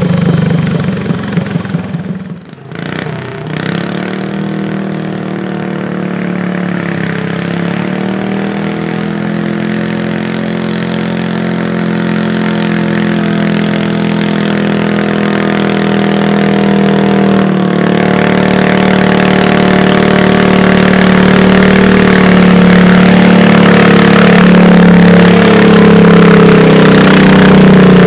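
Modified garden tractor engine running loud and steady under load while pulling the weight sled, choppy and dipping briefly about two seconds in. Toward the end another garden tractor's engine runs close by, growing louder.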